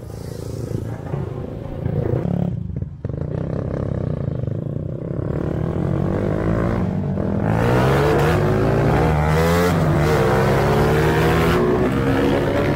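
Honda GTR 150's single-cylinder engine accelerating under a rider: the revs climb, break off briefly at the gear changes made through the quick shifter, and climb again. There is a sharp drop near three seconds in, and the engine runs louder through repeated rising pulls in the second half.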